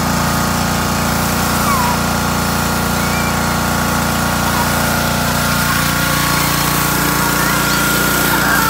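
Honda-powered gas pressure washer, its single-cylinder four-stroke engine running steadily under load, with the hiss of the spray wand jetting water into a pool of foam.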